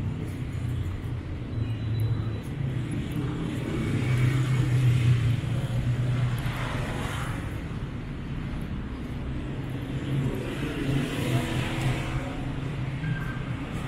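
City street traffic: a steady hum of engines and tyres as vehicles drive past close by. The loudest pass comes about four to six seconds in, and another swells near eleven seconds.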